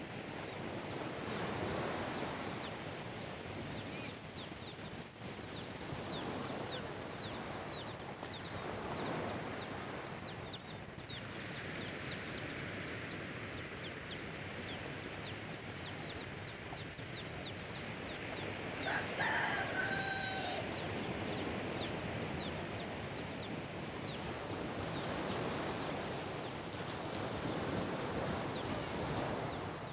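Small waves washing steadily onto a beach, with many short high bird chirps throughout. A rooster crows once, about two-thirds of the way through.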